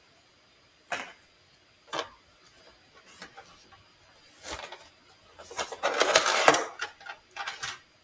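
Gloved hands handling a plastic Foley catheter kit tray: a few light clicks and taps about a second apart, then a couple of seconds of crinkling packaging rustle past the middle.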